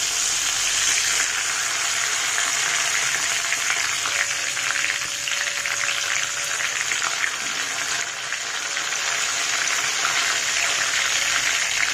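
Cumin seeds, dried red chillies and a bay leaf frying in hot oil in a kadhai: a steady sizzle with fine crackling, the tempering of whole spices at the start of a curry.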